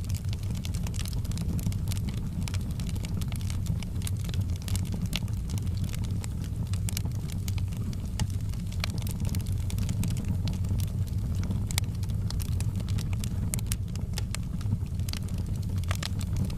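Wood fire crackling in a fireplace: irregular sharp snaps and pops over a steady low rumble of the flames.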